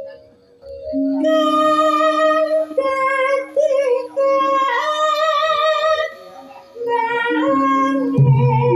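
Javanese gamelan music with a female singer holding long, wavering notes. It starts about a second in, dips briefly, and comes back with louder low notes near the end.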